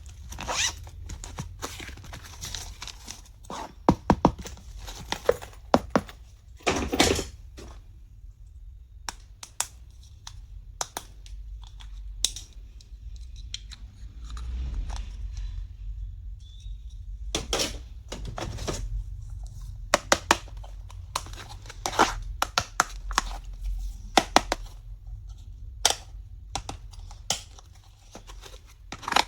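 Packaging crinkling and tearing as small stationery items are unpacked and handled, with many sharp clicks and knocks scattered throughout.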